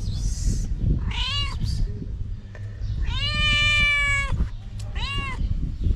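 Domestic cat meowing three times: a short meow about a second in, a long drawn-out meow in the middle, and another short meow near the end. It is a hungry mother cat asking for food.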